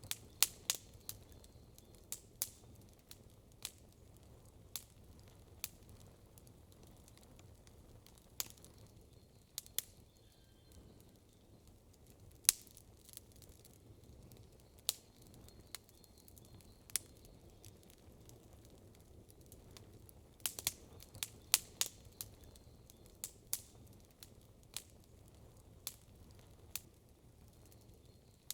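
Wood campfire crackling: sharp, irregular pops and snaps, bunched near the start and again about twenty seconds in, over a low steady rumble.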